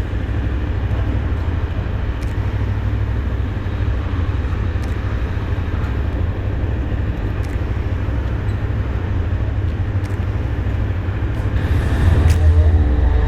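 GR400 motorcycle being ridden: a steady low rumble of engine and wind on the mic, getting louder near the end.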